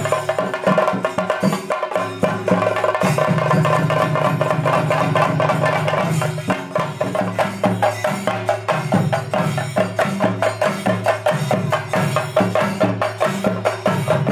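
Temple percussion ensemble of chenda drums beaten rapidly with sticks, over steady ringing tones. The strokes grow denser and more even about halfway through.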